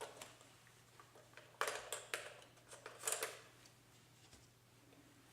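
Plastic clicks and rattles of a Nikon D40X battery compartment being opened and the battery taken out: two short clusters of clicks, about a second and a half in and again about three seconds in.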